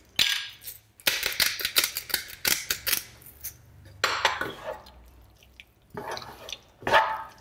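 Kitchen utensils clicking and clattering against a frying pan and dishes as a vegetable and noodle stir fry is seasoned and tossed: a quick run of clicks over the first few seconds, then a few separate clatters.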